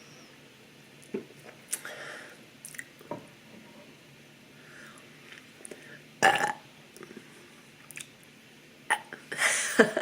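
A woman burping: a short, loud burp about six seconds in and a longer one near the end, with a few small clicks in between.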